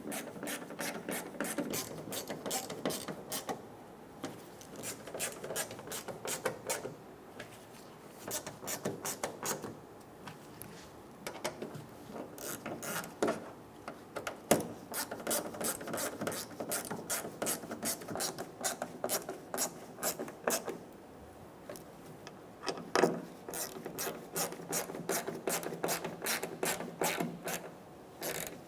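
Hand ratchet with a T15 Torx bit clicking in repeated quick runs, with short pauses between them, as the tailgate cover screws are snugged down one after another.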